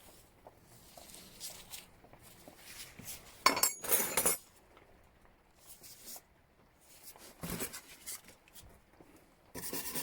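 Steel spanners clinking against one another as they are handled, with a cluster of sharp, ringing clinks about three and a half to four seconds in and a softer knock later. Just before the end a steady scraping rasp begins.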